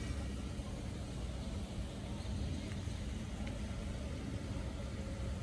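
Steady low outdoor rumble with a faint hiss over it and no distinct events.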